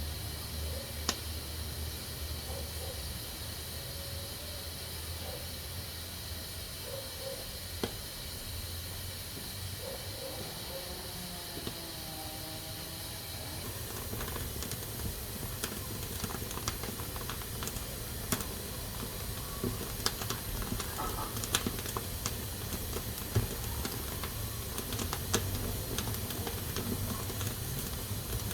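Pressure cooker hissing steadily as steam escapes from its valve. About halfway through the hiss turns brighter, and scattered small clicks come through.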